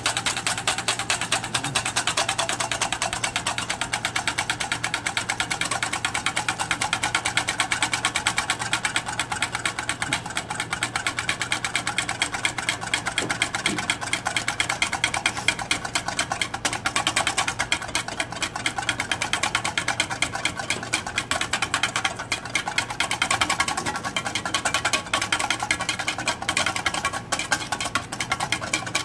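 Wire balloon whisk beating heavy cream by hand in a stainless steel bowl: a rapid, even rhythm of the wires tapping and scraping against the metal, kept up without a break as the cream is whipped toward stiff peaks.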